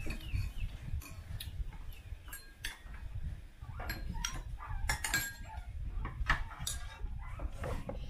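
Chopsticks and spoons clinking against porcelain rice bowls and dishes during a meal: scattered short, sharp taps over a steady low rumble.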